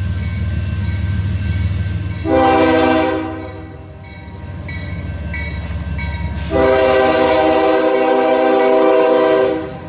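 CSX 5367, a GE ES40DC locomotive, sounding its first-generation Nathan K5HL five-chime horn over the low rumble of the accelerating train. The horn gives a short blast about two seconds in, then a long, louder blast of about three seconds, each a chord of several tones.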